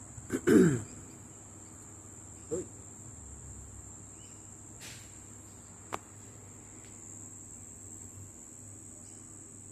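Crickets chirring steadily in a high, continuous trill. A short falling voice sound comes right at the start, and a single sharp click about six seconds in.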